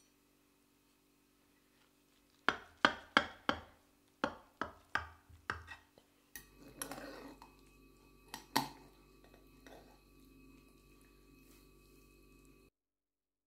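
Metal spatula clinking and scraping against a glass baking dish while cutting baked lasagna: a quick run of about ten sharp clinks, then softer scraping with a couple more clinks, before the sound cuts off near the end.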